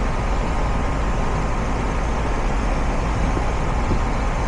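R-22 heat pump outdoor unit running in heat mode: its condenser fan and Copeland scroll compressor give a steady low hum under an even rush of air.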